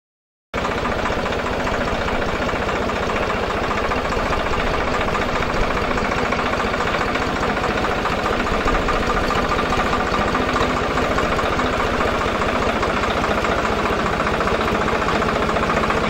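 A Swaraj farm tractor's diesel engine running steadily with an even, fast beat while it pulls a ring-roller land leveler. The sound starts about half a second in.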